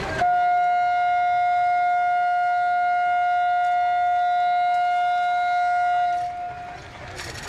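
Horn of a WDP-class diesel locomotive sounding one long, steady single-note blast of about six seconds, starting and stopping sharply.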